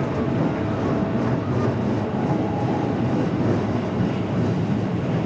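A train running past with a steady rumble of wheels on rails.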